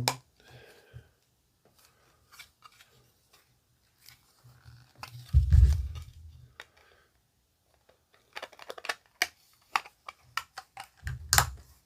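Hard plastic parts of an action-figure docking station being handled and snapped back together: scattered small clicks and taps, a heavier knock about five and a half seconds in, and a run of clicks near the end finishing with another knock.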